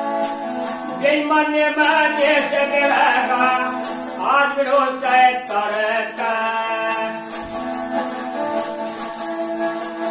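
A bowed folk fiddle playing a steady melody, its bow fitted with small bells that jingle with the strokes. A voice sings along over it for the first few seconds.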